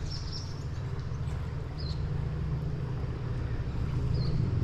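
Wind rumbling on the microphone, unevenly, with a few short faint high chirps of small birds.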